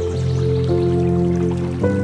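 Calm new-age music of slow, sustained notes, the chord shifting a few times, with faint running and dripping water beneath it.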